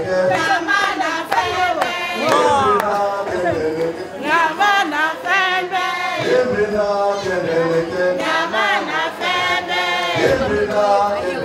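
A choir singing, many voices together.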